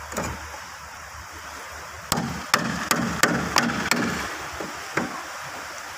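A wooden block knocking on the back of a bolo knife's blade, driving it into a wooden strip to trim it for a small plywood boat: a run of sharp knocks about three a second, starting about two seconds in, with one more a second later.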